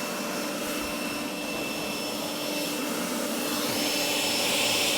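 Leaf blower blasting air at a hovering DJI Mavic 3 drone: a steady rushing whoosh that swells a little near the end, with the drone's propellers humming at a steady pitch underneath.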